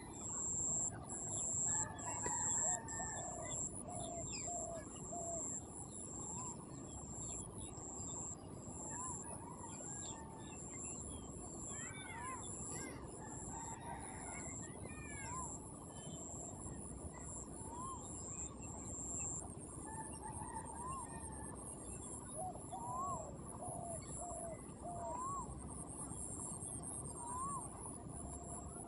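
Birds calling: a short rise-and-fall call repeated every second or two, runs of quick short notes, and a few higher chirps, over a steady high-pitched whine and a constant low background hiss.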